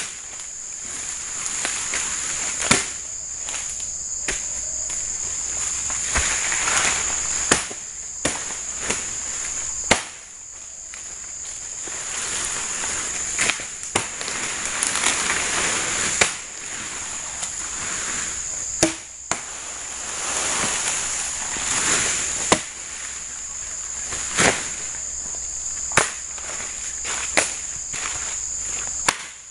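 Dry oil palm fronds rustling and scraping as they are pulled and handled, with sharp knocks or chops every few seconds, over a steady high-pitched drone of insects.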